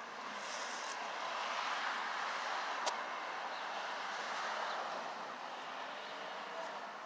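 A passing vehicle: a rushing noise that swells over the first couple of seconds and fades after about five seconds, with a single click about three seconds in.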